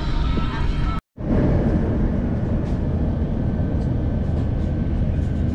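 Steady low rumble of a moving vehicle heard from inside, with a few faint ticks. It follows an abrupt cut about a second in, before which a little music plays over the rumble.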